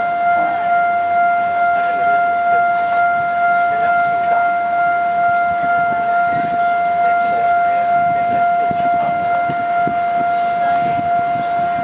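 Railway level-crossing warning alarm sounding one steady, unbroken electronic tone, the signal that a train is approaching and the crossing is closed.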